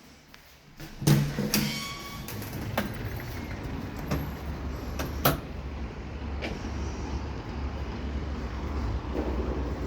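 UNIT elevator setting off with a clunk and a few sharp clicks about a second in, then a steady low rumble with occasional clicks as the car travels.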